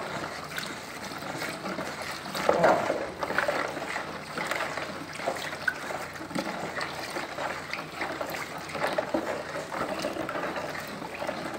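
A thin stream of warm cooking oil trickling into a plastic basin of caustic soda solution while a wooden spoon stirs and sloshes the liquid, with a louder stir about two and a half seconds in. This is the stage of homemade soap making where the oil goes into the lye a little at a time.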